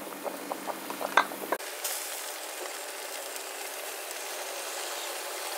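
A few light clinks and taps from a small glass bottle at a cooking pot, then whole fish sizzling steadily in a wire grilling basket over a grill.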